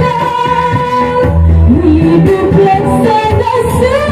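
A young woman singing a long-held, wavering melody into a microphone through a PA, backed by a live band with keyboard and drums.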